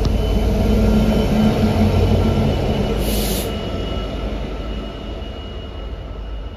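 Class 66 diesel-electric freight locomotive passing, its two-stroke V12 diesel running with a steady hum that fades as it moves away. A brief high hiss about three seconds in.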